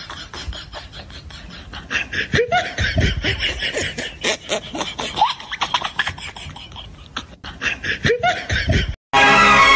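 A metal ladle clicking and scraping against an iron kadhai, with short snickering laughter over it. About nine seconds in, the sound cuts off and Bollywood-style music starts abruptly.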